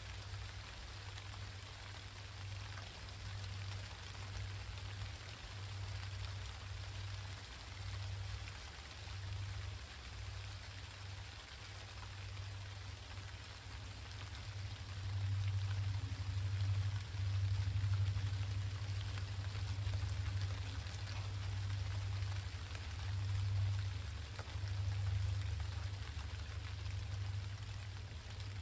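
Steady rain falling and pattering on surfaces, with a low rumble underneath that grows louder about halfway through and eases off near the end.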